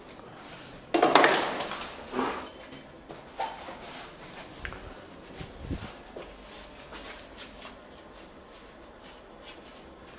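Sheet-metal electrical cabinet doors being handled: a loud metallic clang about a second in, a smaller bang a second later, then lighter knocks and clicks.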